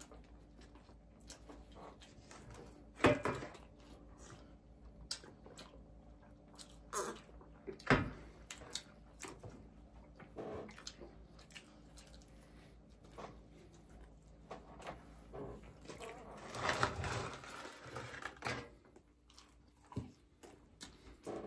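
People eating White Castle sliders: quiet chewing and mouth sounds broken by a few sharp clicks and knocks, with a short stretch of rustling toward the end.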